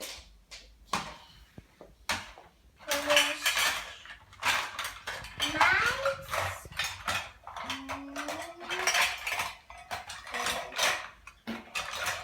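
Small pans, plates and spoons being handled and set down: a run of clinks, knocks and clatters, busier from about three seconds in.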